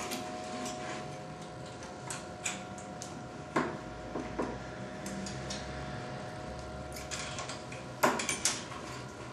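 Small hammer tapping a 2 mm steel punch, a series of irregular metal-on-metal clinks with the loudest taps near the middle and near the end. The punch is staking a chart recorder pen arm's clevis closed to take the play out of its pivot.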